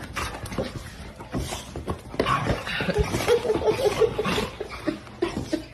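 A dog vocalising, with a quick run of short repeated sounds in the middle, over scattered knocks and clicks.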